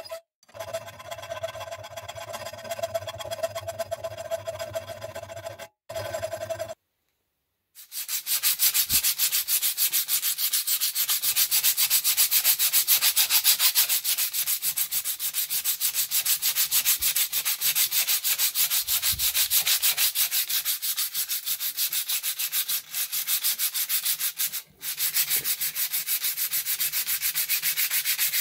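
A metal file rasping along the blade of old forged-steel scissors, with a steady ringing tone. After a brief silence it gives way to louder, fast back-and-forth hand sanding of the rusty steel blade with sandpaper.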